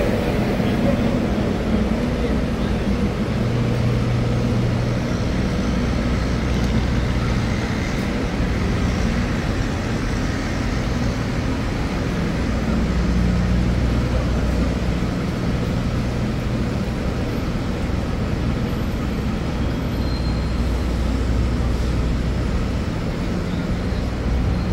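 Busy city street ambience: the steady low rumble of motor traffic, with engine hum rising and falling as vehicles idle and move, under a general street noise.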